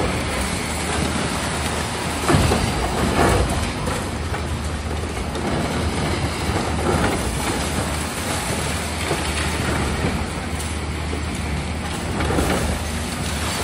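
Demolition excavators at work: diesel engines running under a steady clatter and crunch of breaking concrete and steel debris, with louder crashes about two to three and a half seconds in.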